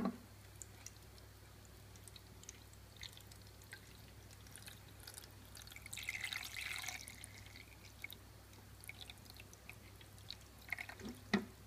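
Water poured in a thin stream into the plastic reservoir of a gravity filter jug, filling it to just above the filter cartridge, with small drips and splashes and a louder splash about six seconds in. A sharp knock at the start and another near the end.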